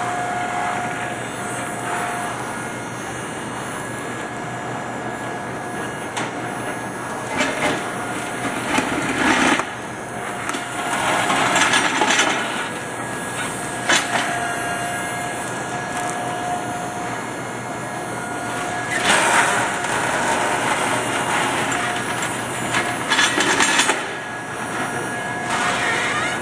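Electric mini excavator working a trench: a steady machine whine and hum, broken several times by loud scraping and crunching as the bucket digs through compacted stone.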